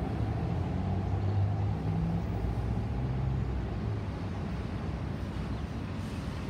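Airbus A320-232 with IAE V2500 turbofans passing high overhead: a steady, low jet rumble with slowly shifting deep drones in it.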